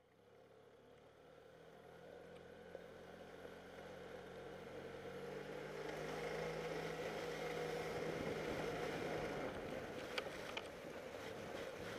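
Gas E-Z-GO golf cart engine running under way at a steady, governed speed, growing louder over the first several seconds. This is the cart still on its stock exhaust and unadjusted speed governor. A few sharp clicks come near the end.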